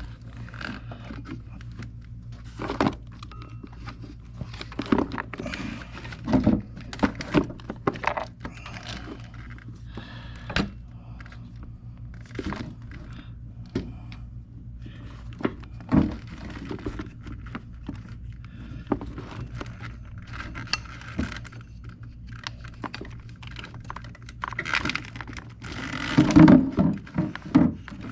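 Irregular metallic clinks, knocks and scrapes of hands working a serpentine belt around the pulleys in a GM 3800 V6 engine bay, busier near the end, over a steady low hum.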